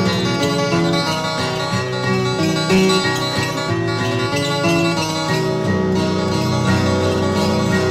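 Instrumental music led by plucked acoustic guitar, notes ringing one after another at a steady level.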